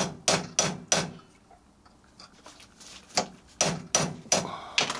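Light hammer taps, struck with the side of the hammer, driving a part back onto the armature shaft of a Hornby model train motor: four quick taps, a pause of about two seconds, then five more.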